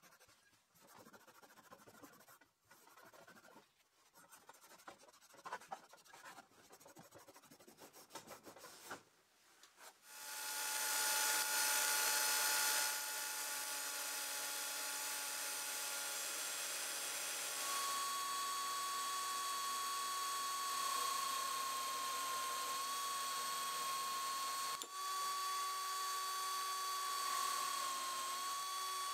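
Cloth rubbing over a rusty metal tripod fitting, faint and uneven. About ten seconds in, a cordless drill spinning a felt buffing wheel starts up and runs steadily with a high motor whine, buffing small metal parts. The whine dips slightly now and then.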